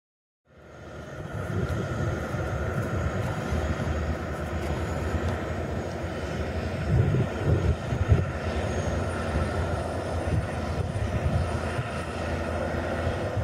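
Heavy diesel farm machinery running steadily, a deep engine rumble with a steady whine above it, and a few louder knocks about halfway through.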